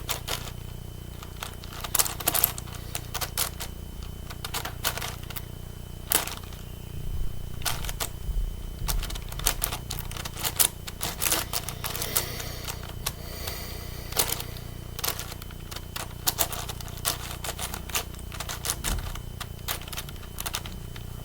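Plastic clicking and clacking of a 9x9 Rubik's cube as its layers are turned by hand, in irregular runs of quick turns with short pauses between.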